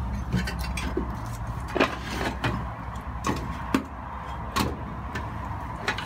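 Wood fire at the open firebox door of a small wood-fired Fowler 0-4-0 steam locomotive that is still raising steam. Irregular sharp clicks and knocks, about ten of them, sound over a steady low rumble.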